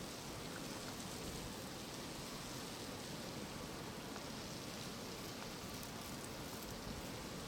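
Steady, even outdoor hiss with a few faint ticks, like fine precipitation or wind on the microphone during a snowstorm.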